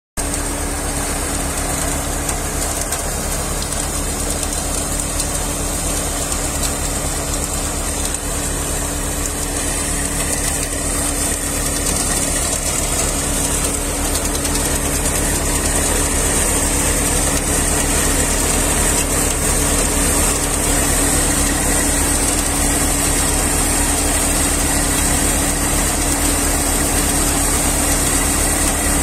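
Tractor-driven multi-crop thresher threshing paddy: the tractor engine and the spinning thresher drum run at a steady pace, with a constant hum and a high hiss. It grows slightly louder about halfway through.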